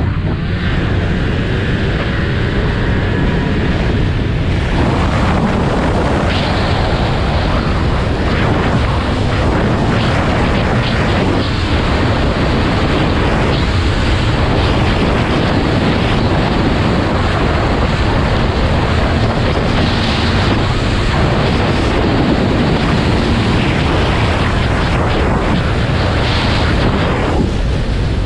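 Steady, loud wind rush buffeting the microphone of a snowmobile riding at speed, with the machine's engine running underneath.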